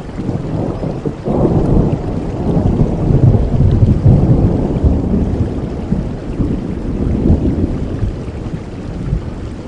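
Steady rain with a long roll of thunder that builds about a second in, is loudest in the middle, and slowly dies away near the end.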